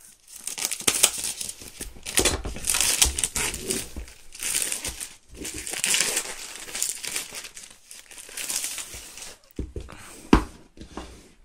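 Packaging of a power-supply retail box crinkling and crackling as it is pulled open by hand, in several spells of a second or two, with a sharp knock about ten seconds in.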